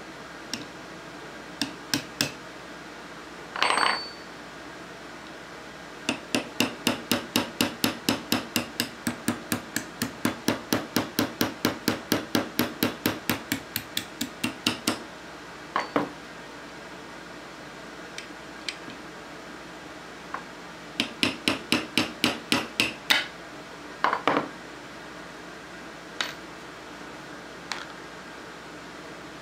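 Hammer tapping a brass punch to drive a pin out of an Ithaca Model 49S rifle receiver: two long runs of quick taps, about four a second, with a few single knocks between.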